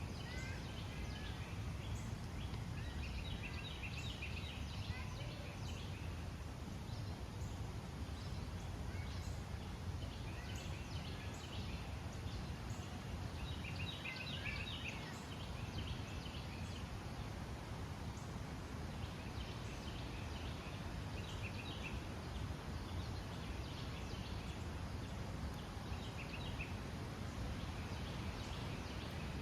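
Forest ambience: songbirds singing in short bursts of quick high chirps every few seconds, over a steady low rumble.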